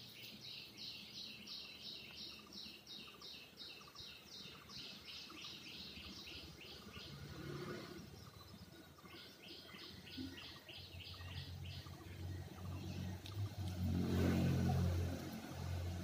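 A bird chirping over and over, about three short high calls a second, in two long runs with a pause between. Near the end a louder low rumble swells up and dies away.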